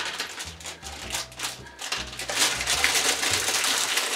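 Small plastic Lego pieces rattling and clicking into a plastic sorting tray as they are tipped out of a plastic bag. The bag crinkles, and the sound thickens into a denser rustle about halfway through.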